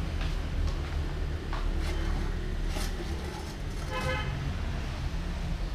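A steady low rumble with a few light clicks, and one short horn toot about four seconds in.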